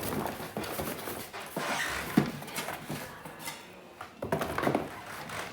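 Handling noises: rustling with scattered light knocks and clicks, as passion fruit are picked up and turned over.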